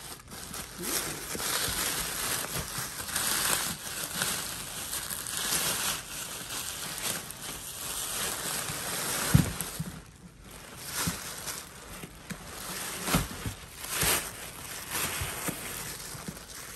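Tissue paper and plastic wrapping rustling and crinkling as they are pulled and handled by hand around a leather satchel in a cardboard box, with a few soft knocks in the second half.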